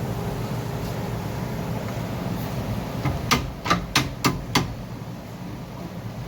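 Five quick hammer strikes on metal, about three a second, over a steady background hum.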